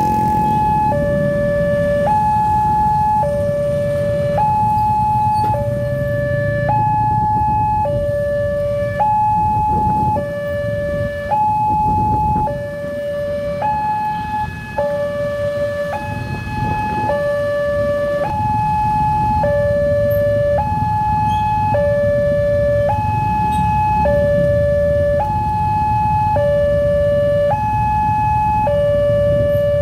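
Level-crossing electronic warning alarm sounding continuously, alternating a high and a low tone, each held about a second: the signal that a train is approaching and the barriers are coming down. Road traffic rumbles underneath.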